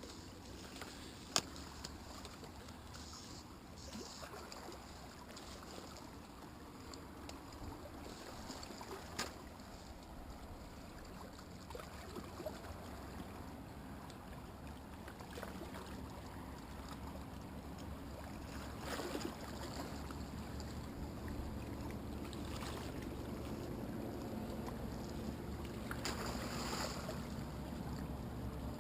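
Outdoor waterside ambience: a steady low rumble of wind on the microphone over a haze of water noise. A sharp click comes about a second in and another near ten seconds, and the sound swells a little louder toward the end.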